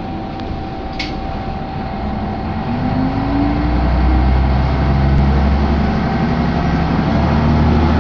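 Diesel railcar's engine heard from inside the cabin, revving up and growing louder over the first few seconds as the train pulls away from the station. A short sharp click sounds about a second in.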